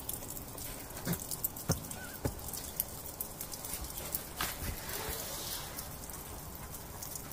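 Light rain dripping: faint, irregular taps and ticks, the sharper ones in the first half.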